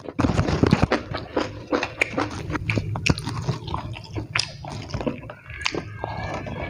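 Close-miked chewing of a mouthful of rice and raw vegetable, with irregular wet crunches, clicks and smacks.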